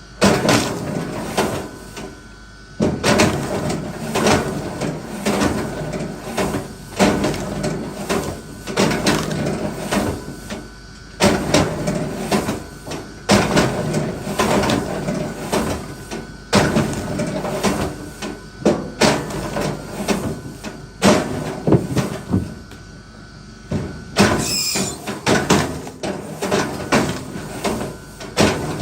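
Hand work on wood: sharp knocks every one to three seconds, each followed by scraping and creaking.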